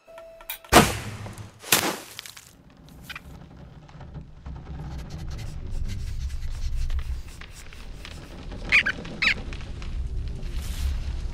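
Cartoon sound effects: two sharp snaps about a second apart near the start, then a low rumble that slowly grows louder, with two short high squeaks near the end.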